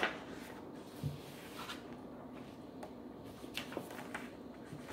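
Sheets of paper being handled and shuffled, a few short crisp rustles with a soft bump about a second in.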